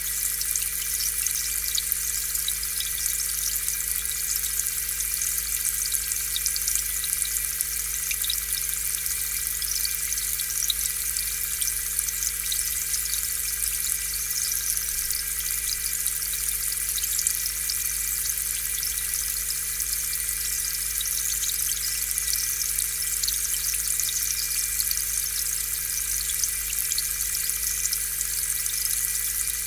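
Aquarium air pump running, with its steady electric hum, and air bubbles fizzing and bursting at the water surface in a continuous crackle.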